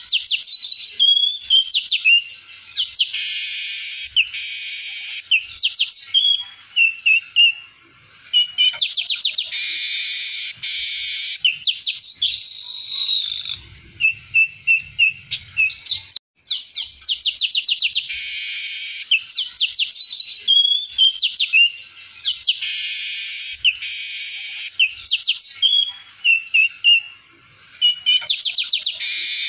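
Male streaked weaver (manyar) singing a long, busy song of loud buzzy, rattling stretches about a second long, alternating with quick chirps and whistled notes. The phrases recur over and over, a 'full isian' song packed with mimicked notes of other birds.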